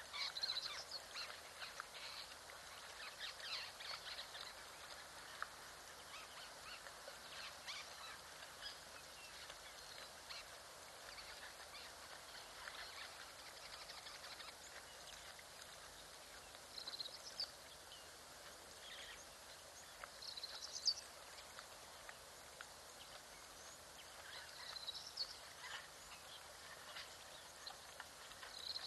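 Lion cub lapping water: faint wet clicks and small splashes, densest in the first few seconds and scattered after that. A few short bird chirps come in later.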